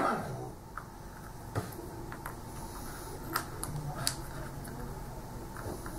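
A handful of light clicks and taps as cardboard wargame counters are picked up and set down on a mounted map board.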